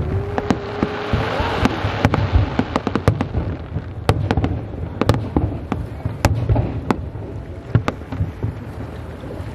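Fireworks going off: an irregular run of sharp bangs and crackles from aerial shells and low fountains over a low rumble, with a hissing rush in the first couple of seconds.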